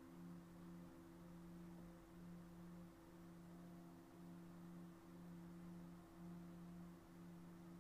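Faint background drone of a few steady pure tones, the lowest one pulsing about once a second.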